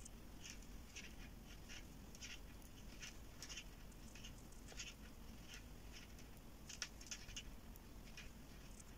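Faint, irregular light clicks of metal knitting needles and yarn, a few a second, as stitches are purled on two needles.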